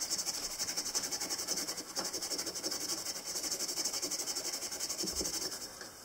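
Fine steel wool scrubbed rapidly back and forth over the rusty steel blade of an old pocket knife, a fast, even, scratchy rasping of several strokes a second, taking off the rust. It stops just before the end.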